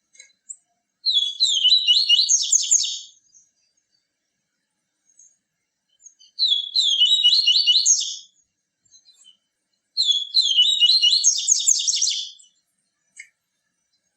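Papa-capim, a Sporophila seedeater, singing three phrases of rapid, high, sweet notes, each about two seconds long with a pause of a few seconds between them.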